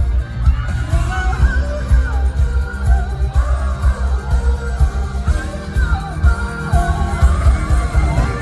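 A live pop-rock song played loud through a concert PA: a singer's voice over a heavy, pounding bass beat, recorded from the audience.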